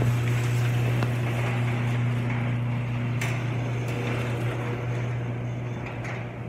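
Electric garage door opener running as the overhead door rolls up: a steady motor hum with a few faint clicks, easing off slightly toward the end.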